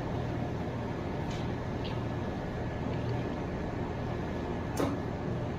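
Steady machine hum with a few light clicks, and one sharper click near the end.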